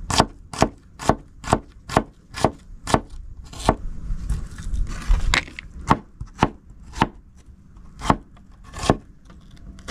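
Long kitchen knife slicing a red onion directly on a wooden table top, each cut ending in a sharp knock of the blade on the wood. About two strokes a second at first, coming less often in the second half.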